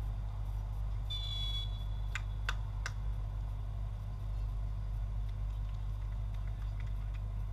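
A short, high referee's whistle blast about a second in, followed by three short sharp sounds, over a steady low rumble.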